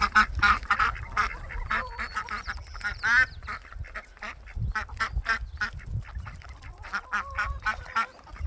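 A small flock of young ducks quacking in a quick, busy run of short calls, with a brief lull about four seconds in.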